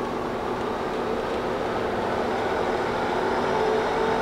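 TRAK DPM-SX2 CNC bed mill's spindle running with a steady mechanical hum, growing gradually louder as the spindle speed is brought up from about 1800 toward 4200 RPM in high range.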